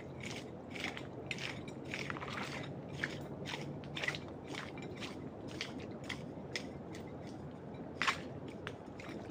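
Footsteps crunching over rough ground: an irregular run of crackling, crunching steps, several a second, over a faint steady low hum.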